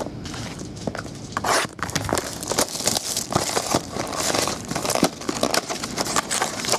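Clear plastic shrink-wrap crinkling and tearing as it is stripped off a trading-card box, with a steady crackle of small clicks, then the cardboard box being handled and its flap opened near the end.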